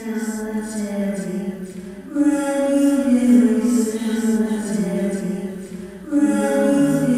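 A cappella vocal music: layered voices singing held notes that slide downward, a new phrase coming in about two seconds in and again about six seconds in.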